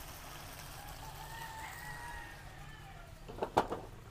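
A rooster crowing: one long faint call of about two seconds. Near the end, a couple of sharp knocks.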